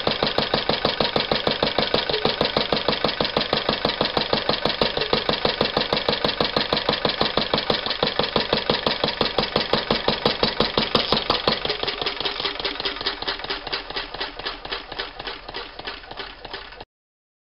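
1949 Lister D single-cylinder four-stroke stationary engine running with a quick, even beat. From about two-thirds of the way in, the beats slow and fade as the engine runs down. The sound cuts off suddenly near the end.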